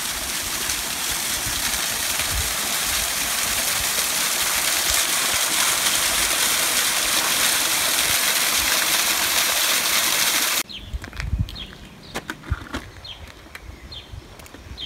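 A steady, loud rushing hiss that cuts off abruptly about ten seconds in. After it, birds chirp in short, repeated high notes, with a few soft thumps.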